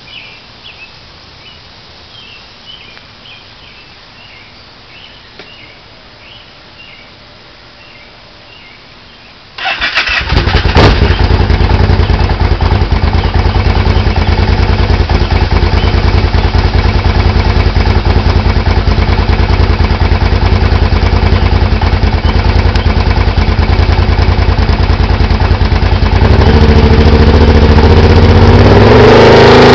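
Faint high chirping for the first several seconds. Then the 2008 Kawasaki Brute Force 750's V-twin starts up about ten seconds in and runs loud and steady through its Muzzy full exhaust. Near the end the engine speed steps up and holds there.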